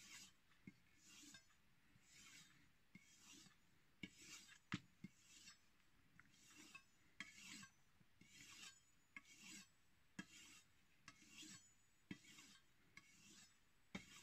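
Kitchen knife blade drawn over a strop in alternating strokes, a faint soft rasp about every 0.7 s with an occasional light click. The stropping is meant to bring back a dulled edge rather than regrinding it.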